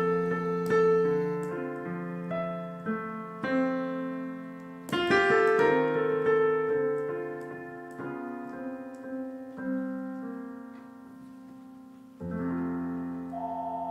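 Solo piano playing chords that ring and fade, with a louder flurry of notes about five seconds in and a fresh low chord near the end. Right at the end a telephone starts ringing, a warbling two-tone ring.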